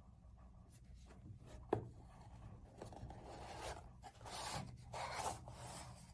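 A cardboard sunglasses box being slid open: a sharp tap as it is set down on the wooden table, then the inner tray scrapes out of its sleeve in several rubbing strokes.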